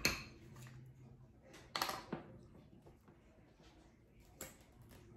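A few light clicks and taps from a knife in a glass bowl of frosting and a small jar of gel food colouring being handled: one at the start, two about two seconds in, and a small one near the end.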